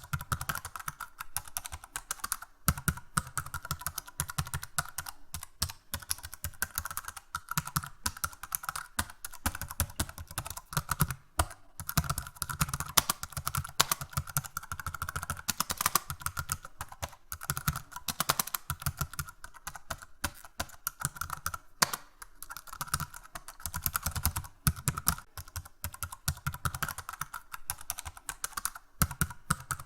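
Fast, hard typing on a computer keyboard: a dense, unbroken patter of key clicks, with a few short pauses.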